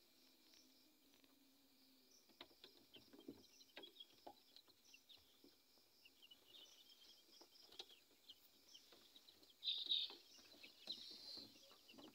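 Young Fayoumi chickens peeping and chirping faintly, with scattered small clicks and scratches; a louder burst of calls comes near the end.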